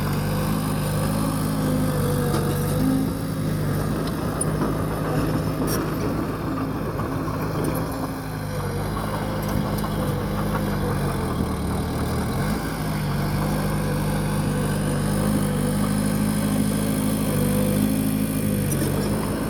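Heavy diesel engine of a bulldozer running steadily under work. About halfway through the engine eases off and its pitch drops for a few seconds, then it picks back up.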